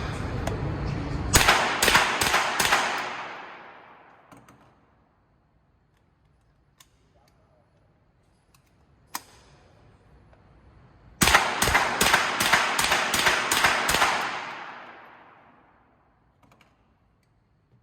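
Two quick strings of semi-automatic rifle shots with echoing tails: about five shots a second and a half in, then about eight more in rapid succession a few seconds before the end, with a single sharp click in the quiet between them.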